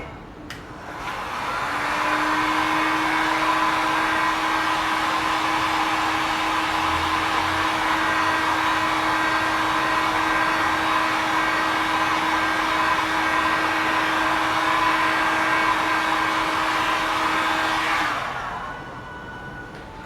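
Electric hot-air blower switched on about a second in, running steadily with a constant hum, and switched off near the end, drying freshly brushed clear coat.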